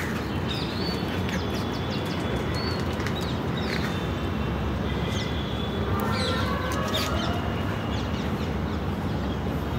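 Several birds chirping and calling in the open, short high chirps and whistles scattered throughout, with a longer call about six seconds in, over a steady low background noise.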